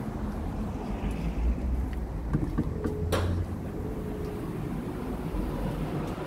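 Low wind and handling rumble on a handheld microphone while walking in through a glass entrance door. There is a sharp click about halfway through, a faint steady whine for a couple of seconds after it, and a sharp knock at the end.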